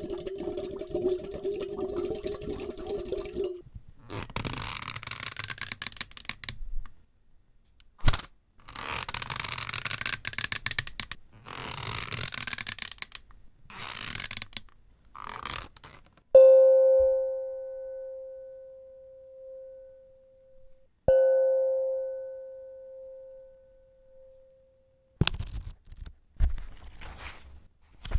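A run of separate sounds: a steady hum for the first few seconds, then scraping and rustling, then two sharp strikes about five seconds apart, each ringing on a clear note and dying away over several seconds, and clicks and handling noise near the end.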